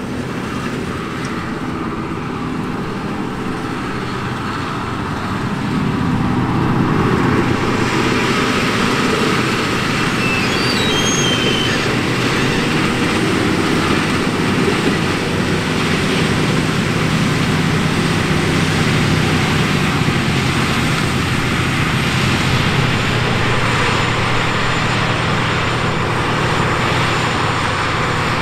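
Case IH Quadtrac 540's six-cylinder diesel engine running steadily under heavy load as the tracked tractor pulls a seven-shank subsoiler and disc harrow through the soil. It gets louder about six seconds in and then holds.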